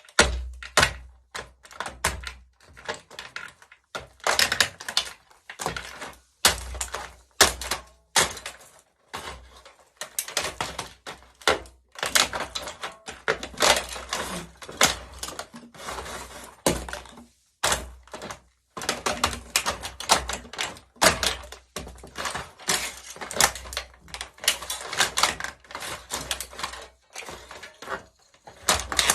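Plastic remote-controlled toy car being crushed under high heels: a fast, irregular run of sharp cracks, snaps and clicks, many with a low thud as the heel comes down.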